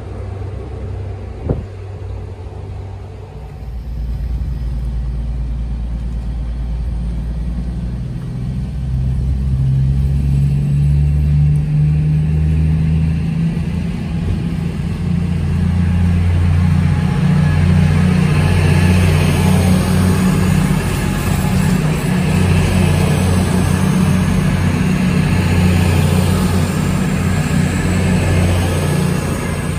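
Class 222 Meridian diesel multiple unit's underfloor diesel engines running under power. They rev up, the pitch rising in steps about ten seconds in, then hold a loud steady drone.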